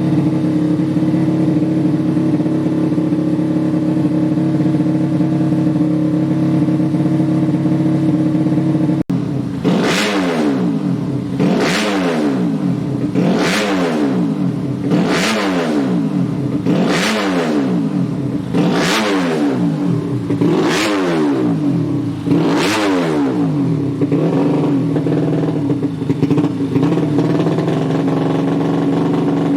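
Modified 130cc underbone motorcycle engine idling steadily, then revved in seven quick blips about two seconds apart before settling back to idle, as it is tuned.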